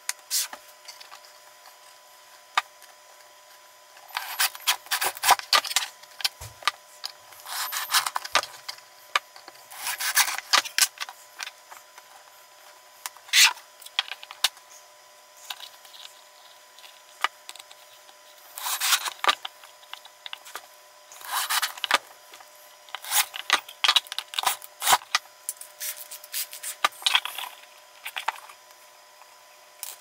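Pine blocks and a plywood board being handled, slid and scraped against each other and the tabletop, in short irregular bursts of scraping with small knocks and clicks.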